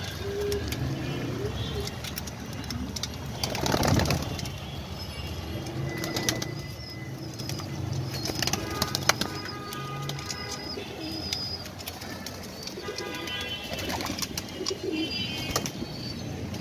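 Domestic pigeons cooing in low hums as a crowded flock feeds on grain, with many short clicks from beaks pecking at the seed. A louder rustle comes about four seconds in.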